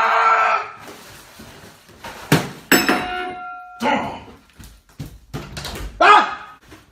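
A man's loud scream that cuts off within the first second, then a knock and a sharp metallic clang that rings on for about a second, followed by two short shouts.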